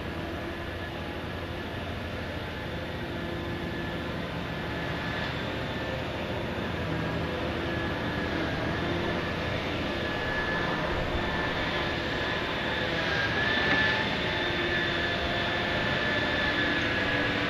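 Heavy dredging machinery running steadily: an engine drone with a high, slightly wavering whine, growing gradually louder.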